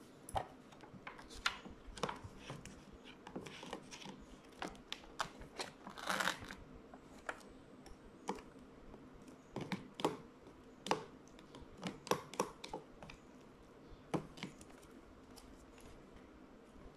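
Sharp irregular clicks and scrapes of a metal utensil against a paper instant-noodle cup as the noodles are stirred, with paper peeling and crinkling, including one longer tearing sound about six seconds in.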